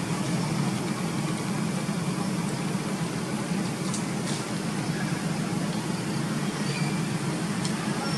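Steady outdoor background rumble with a low hum-like weight, with a couple of faint clicks about halfway through.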